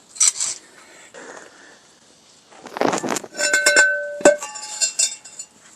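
Metal brake parts and tools clinking and ringing as drum-brake hardware is handled, with a run of clinks from about halfway through and one sharp metallic knock, the loudest, a little later.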